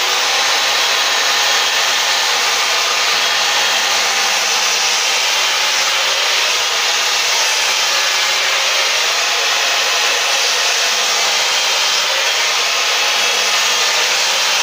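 Stihl corded electric chainsaw running steadily while cutting grooves into the top of a wooden log.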